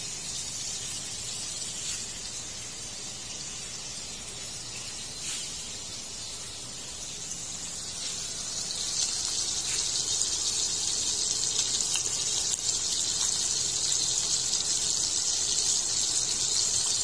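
Whole tilapia sizzling in hot oil in a stainless steel frying pan: a steady frying hiss that grows louder about halfway through.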